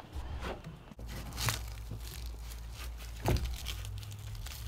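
Gloved hands tearing apart and crumbling water-rotted wood that has gone soft like wet cardboard, a soft crackling and tearing with two sharper cracks about one and a half and three seconds in.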